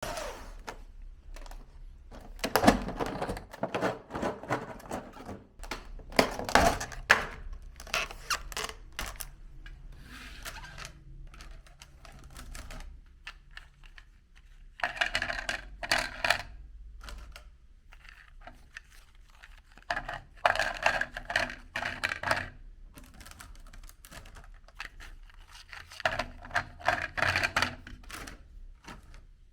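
Meat grinder crunching up hard cookies: bursts of rapid crackling and clicking as the cookies break up, several times over, with quieter stretches between.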